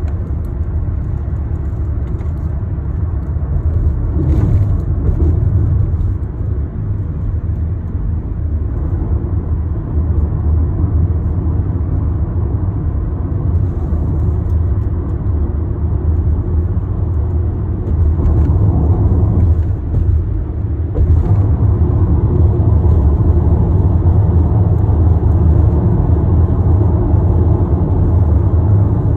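A car driving on a paved road, heard from inside the cabin: a steady low rumble of engine and tyre noise that gets a little louder about two-thirds of the way through.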